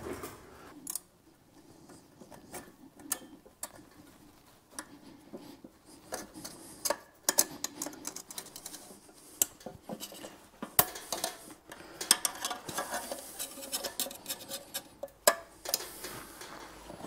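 Light metal clinks, clicks and small rattles of snap-ring pliers and a steel snap ring being worked onto the countershaft by its roller bearing, with a few sharper clicks along the way.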